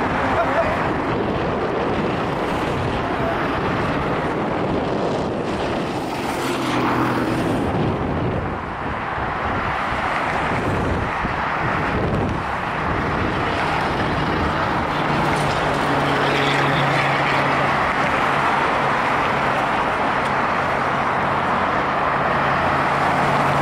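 Steady jet engine noise from an Airbus A330-900neo's Rolls-Royce Trent 7000 engines during the landing rollout, mixed with road traffic passing close by. A low vehicle engine hum joins about two-thirds of the way through.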